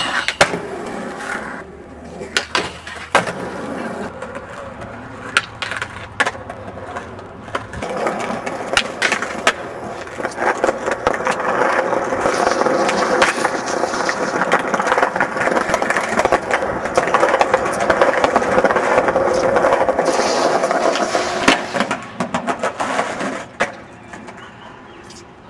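Skateboard wheels rolling over concrete, growing louder and steadier through the middle, broken by many sharp cracks and slaps of tail pops, landings and the board hitting the ground.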